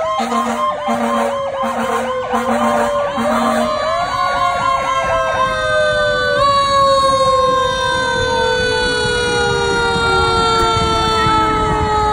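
Fire truck sirens sounding as the trucks pass. A fast yelping warble runs for the first few seconds, then gives way to a long wail that slowly falls in pitch.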